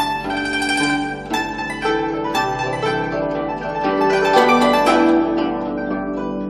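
Instrumental background music: a plucked string instrument playing a melody of separate ringing notes.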